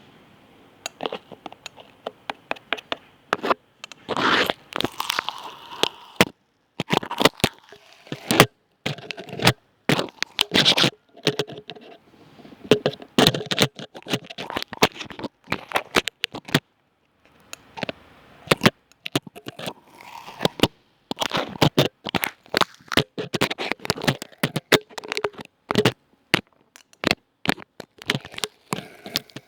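ASMR trigger sounds made close to the microphone: irregular scratching, crackling and sharp clicky taps, broken by a few short pauses.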